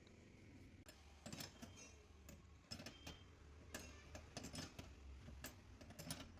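Faint, irregular clicks and taps, about a dozen in all and unevenly spaced, over a low steady hum.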